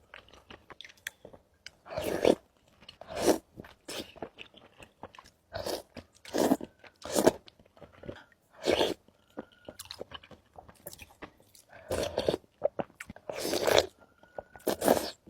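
Close-miked chewing and crunching of seblak, irregular bites and chews about once a second with short pauses between.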